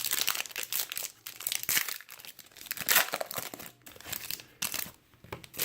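Trading card pack wrapper being torn open and crinkled by hand: irregular crackling and rustling, with a louder burst about three seconds in.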